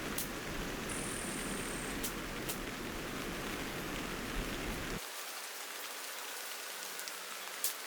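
Steady rain with scattered sharp drops and a low rumble underneath; about five seconds in the rumble cuts off suddenly, leaving a lighter rain hiss, and one louder drop lands near the end.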